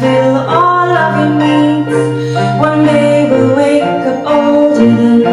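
Live band music: piano, cello, electric guitar, bass and drums playing a song together, with sustained notes over a held bass note that shifts a little past halfway.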